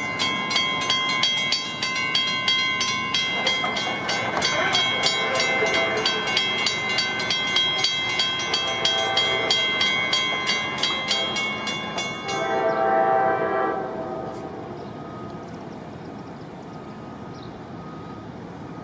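A warning bell rings rapidly, about three strokes a second, while an approaching locomotive's horn sounds in the distance. The bell stops about twelve seconds in, just as the horn swells into its loudest blast, then fades.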